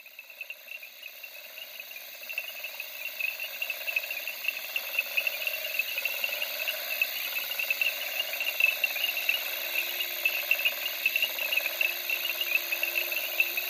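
Field recording from the Okavango Delta wetland: a dense, continuous chorus of insects chirring at a high pitch, with a fainter lower layer of animal calls beneath it. It fades in over the first few seconds.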